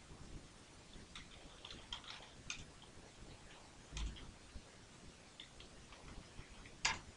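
Typing on a computer keyboard: faint, irregular keystrokes. There is a duller knock about four seconds in and a louder key clack near the end.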